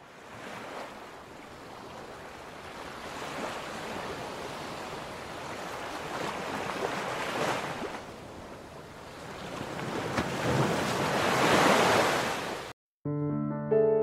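Ocean surf: waves rolling in and washing out in slow swells, the loudest one near the end. It cuts off suddenly about a second before the end, and soft electric piano music begins.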